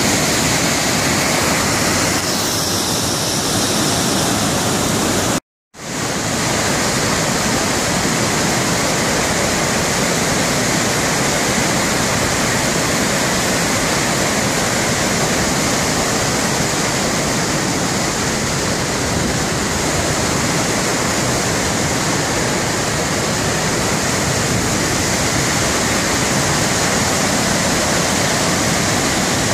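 Waterfall and whitewater rapids: a loud, steady rush of falling and churning water, cut off completely for about half a second some five seconds in.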